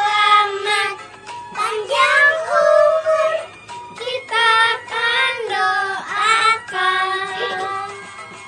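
A small group of children singing a birthday song together, in short sung phrases with brief breaks between them.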